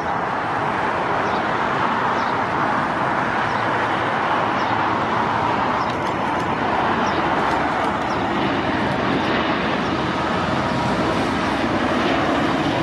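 Boeing 787-9 jet engines at takeoff power, a steady rushing noise as the airliner rolls down the runway and lifts off.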